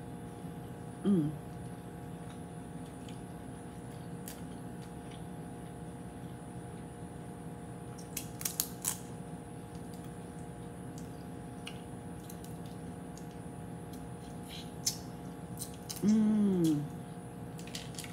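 Boiled crawfish shells peeled by hand, with a few sharp snapping clicks about eight seconds in and again near the end. Twice a woman lets out a short, falling "mm" of enjoyment, about a second in and near the end.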